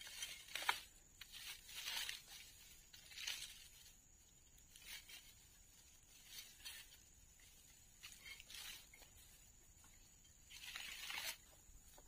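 Dry, tangled fern and vine stems rustling and tearing as they are handled and pulled about on a brush cutter's blade, in a series of short crackling rustles a second or two apart, with a longer one near the end. The brush cutter's engine is not running.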